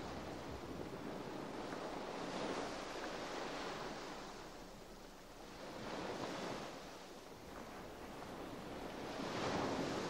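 Sea waves washing in as a steady hiss that swells three times, about every three to four seconds.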